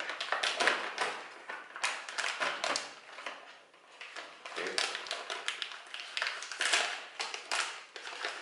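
A plastic Lay's crisps bag crinkling and crackling as it is torn open by hand across the top, in a run of irregular sharp rustles.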